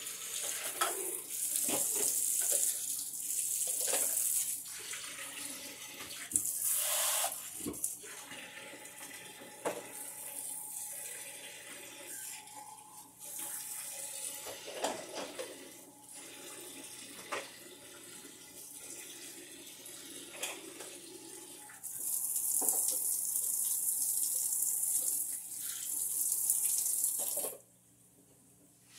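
Water running in several stretches, with small knocks and clatter between them, over a steady low hum; the running stops abruptly near the end.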